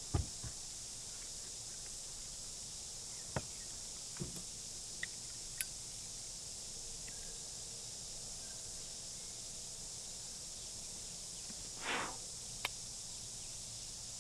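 Quiet outdoor background with a steady high-pitched hiss, broken by a few small clicks and handling sounds and one short rasping scrape near the end.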